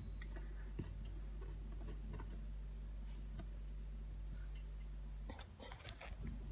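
Quiet room tone with a steady low hum and a few faint, scattered ticks of light handling at a countertop. There is a short run of low bumps and rustle about five and a half seconds in as the phone filming is moved.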